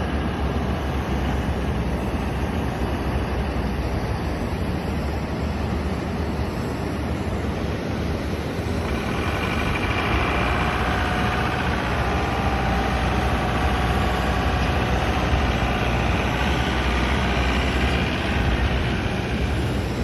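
Steady low engine rumble from vehicles on an airport apron. About nine seconds in, a steady high-pitched whine joins it.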